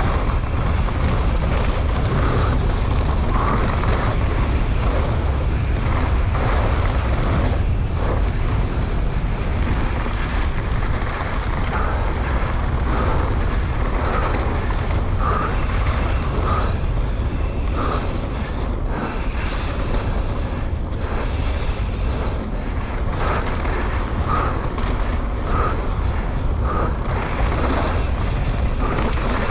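Wind rushing over an onboard camera microphone on a mountain bike descending fast on a dirt trail, with the bike and tyres rattling and knocking over rough ground.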